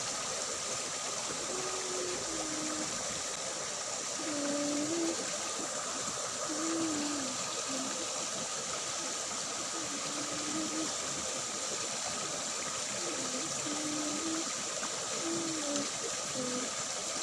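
Steady rush of water flowing along a small ditch, even and unbroken throughout.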